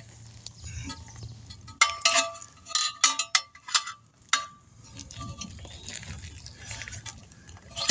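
Metal clinks and knocks with short ringing tones from tire-changing tools working against a wheel rim, clustered from about two to four and a half seconds in, over a faint steady low hum.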